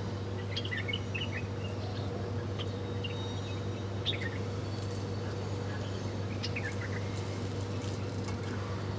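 Small birds chirping in short, quick clusters of calls, a few times, over a steady low hum.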